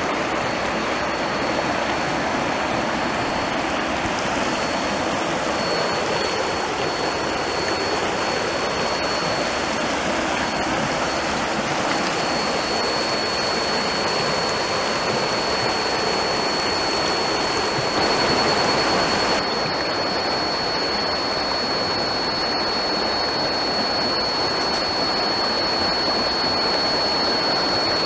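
Shallow river water flowing and rushing over stones, a steady noise, with a thin, steady high-pitched tone running above it that grows stronger about halfway through.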